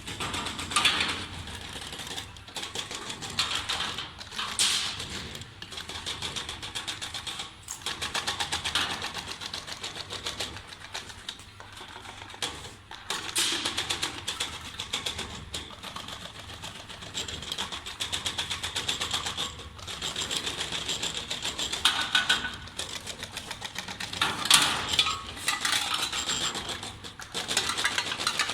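CNC channel-letter bending machine running: a fast, even rattle of clicks from its strip feed and bending head, in stretches of a few seconds with short pauses between.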